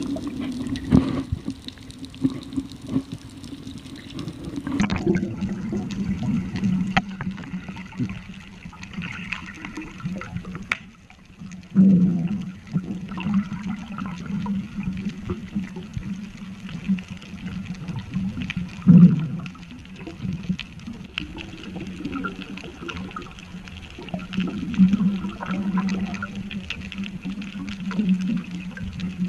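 Muffled underwater sound picked up by a submerged camera: a steady low hum under a faint watery hiss, with louder gurgling surges about twelve and nineteen seconds in as a diver works at a squid trap and air bubbles rise around him.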